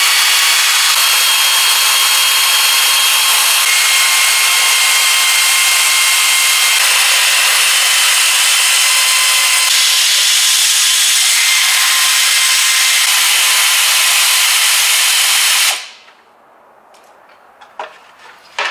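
Pneumatic air tool running with a loud, steady high whirring hiss while the fasteners of a plastic under-cover are taken out. It cuts off suddenly near the end, leaving a few light clicks and rattles of loose parts.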